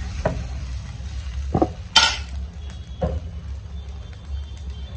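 Batter sizzling on a hot nonstick pan as it is drizzled in a lacy net pattern, over a steady low hum. A few light knocks of utensils against the pan come through, the loudest about two seconds in.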